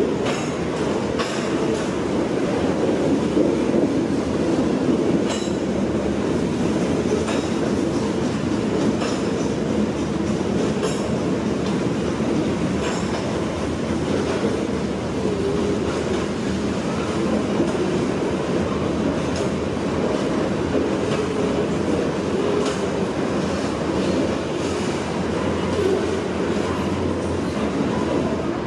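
A freight train of covered hopper cars rolling past: a steady rumble of steel wheels on rail, with scattered clicks as the wheels cross rail joints.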